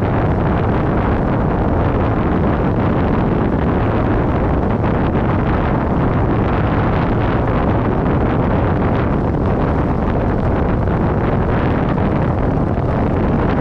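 Kawasaki Vulcan 900's V-twin engine running steadily as the motorcycle rides along, mixed with heavy wind noise on the microphone.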